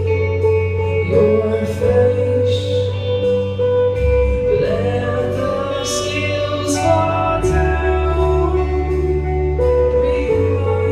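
Music: a singer over held chords and a steady bass line, the chords changing every couple of seconds.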